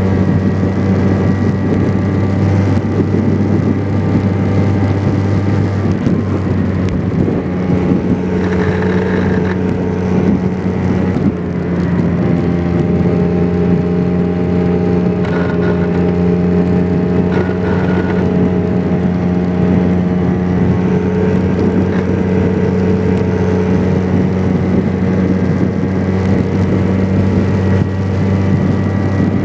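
Vespa PX 125's two-stroke single-cylinder engine running steadily on the move. The engine note changes between about six and twelve seconds in, with a brief dip near eleven seconds, then holds steady again.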